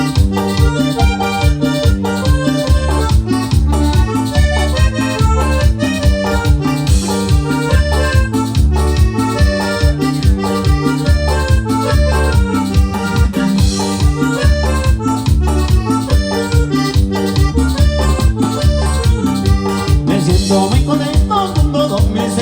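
Instrumental cumbia played on an electronic keyboard, with an accordion voice carrying the melody over a steady bass-and-percussion beat.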